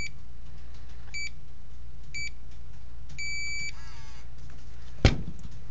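MSA Solaris multi-gas detector beeping as it powers off: three short high beeps about a second apart, then one longer beep as the display reads OFF. A single sharp thump near the end.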